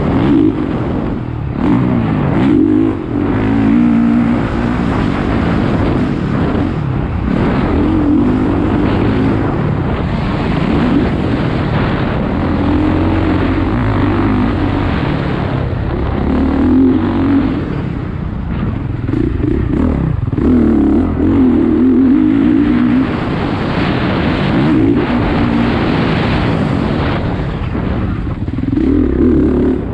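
A vehicle's engine driven hard, its pitch rising and falling again and again as it accelerates and slows through the laps.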